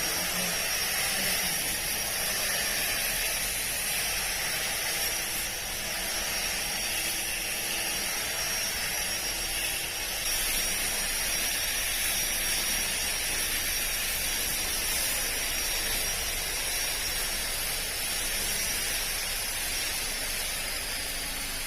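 Makita 18V cordless split-shaft grass trimmer running steadily while cutting lawn grass. Its motor gives a thin, high, steady whine over a hiss of spinning and cutting.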